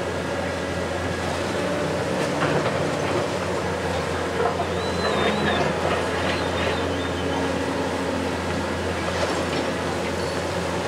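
Hitachi 870 long-reach demolition excavator running steadily while its tool high on the boom works the concrete of the building. There are a few sharp knocks of breaking concrete about two seconds in, and a wavering high squeal through the middle.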